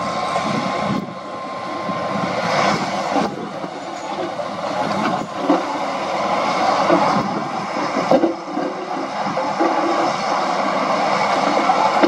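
Heavy diesel earthmoving machinery working: a crawler bulldozer and dump trucks running under load, with irregular knocks and clatter. A thin steady whine sounds for the first two seconds.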